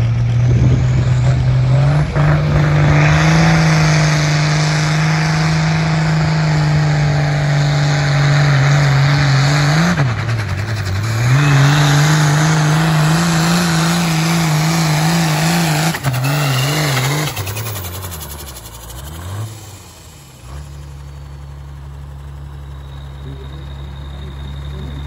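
Ford 9600 diesel tractor pulling a sled at full throttle: the engine holds a steady pitch, sags and recovers about ten seconds in, then wavers up and down for several seconds before winding down. A lower, steady engine drone follows near the end.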